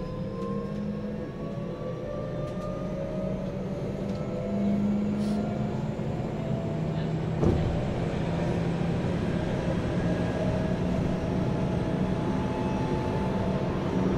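Tokyo Metro 9000 series train heard from inside the car as it picks up speed: the traction motor whine rises steadily in pitch over the steady rumble of wheels on rail, with a single knock about seven and a half seconds in.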